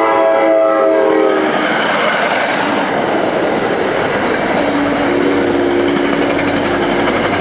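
Metro-North passenger train passing close by, led by its cab car: the horn chord stops about a second and a half in, then the steady rolling and clatter of the coaches' wheels on the rails. About four and a half seconds in a steady low hum joins as the GP40PH-2 diesel locomotive pushing at the rear draws near.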